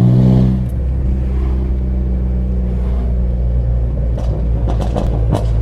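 2005 Vauxhall Astra VXR's turbocharged 2.0-litre four-cylinder running at low revs through a straight-piped, decatted turbo-back exhaust with no resonator or back box. Its burble drops in pitch under a second in, then a run of crackles and pops sets in over the last second and a half.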